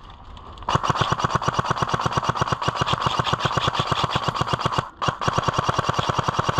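Stock CZ Scorpion Evo airsoft SMG firing full-auto, a rapid, even stream of shots. It starts about a second in, stops briefly near the end, then fires again.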